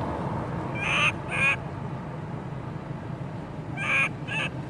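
Baby long-tailed macaque crying: short, high pitched calls in two pairs, about a second in and again about four seconds in, over a steady low rumble of road traffic.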